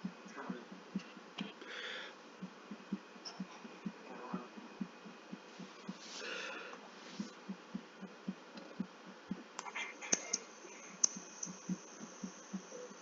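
A steady series of short, soft gulps, about two a second, as air is swallowed again and again to fill the stomach ahead of a burp. Two brief hissy breaths break in between.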